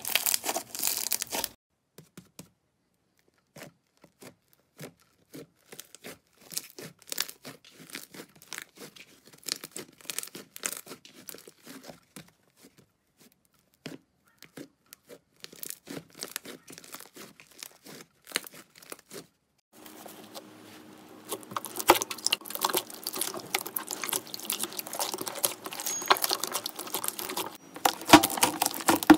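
Slime squeezed, kneaded and pressed by hand, crackling and popping in many small clicks as trapped air pockets burst. The clicks come thinly with brief pauses through the middle and grow denser and louder in the last third.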